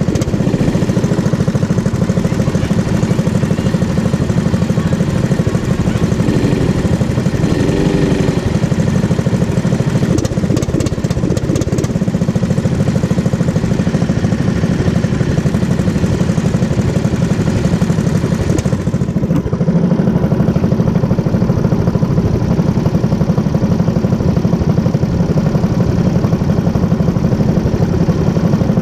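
Go-kart engine running steadily while the kart laps the track, heard from the driver's seat. A hiss in the upper range thins out about two-thirds of the way through.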